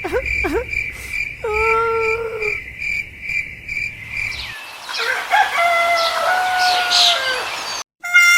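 Crickets chirping in a steady, fast-pulsing high trill, with bird calls and a rooster crowing over it; the sound cuts off abruptly near the end.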